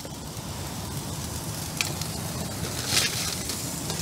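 Steady hiss of a gas grill's burners on low, with two sharp clicks of metal tongs as a salt-coated fish is laid on the foil-lined grill.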